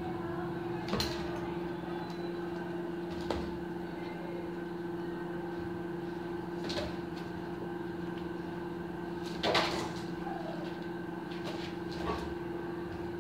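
A Labrador's paws and claws knocking and scraping on a tiled floor as it pounces and scrambles, about five short knocks spread through, the loudest a quick double knock about nine and a half seconds in. A steady low hum runs underneath.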